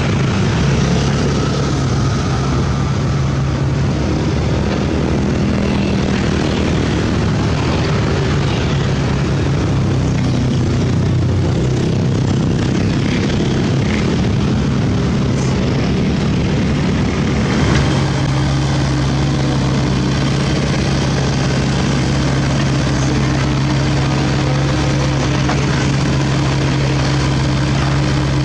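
A CAT mini excavator's diesel engine runs with a steady low hum, with road traffic passing. About two-thirds through, the hum settles into a steadier, stronger drone.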